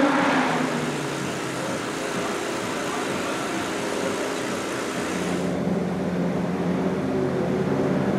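Sauber Mercedes C11's 5.0-litre twin-turbo V8 idling steadily in the garage. The sound turns duller about five and a half seconds in.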